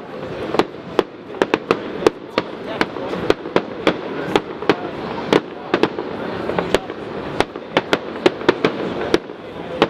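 Aerial fireworks display: a rapid, irregular run of sharp bangs, about three a second, over a continuous rumble of shells bursting.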